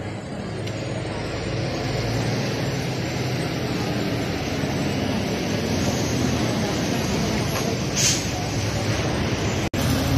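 A motor vehicle engine running close by, with road traffic noise, swelling over the first two seconds and then steady, with a short hiss about eight seconds in.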